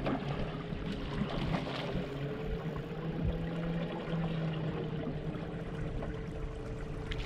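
River water lapping and trickling against an aluminum jon boat's hull, with a steady low hum that drifts slightly in pitch.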